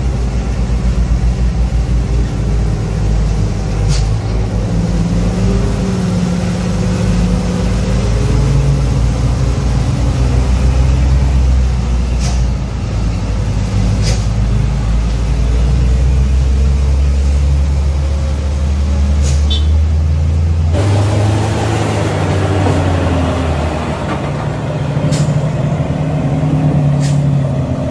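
Heavy diesel trucks running at low speed under load on a steep hairpin climb, with a low engine drone whose pitch wavers slowly. A few short, sharp hisses, typical of air brakes, cut through it, and the sound changes abruptly about 21 seconds in.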